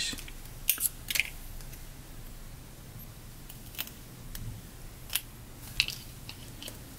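Scissors snipping paper in short, separate cuts, with uneven pauses between them, as embossed stripes are cut out of the paper.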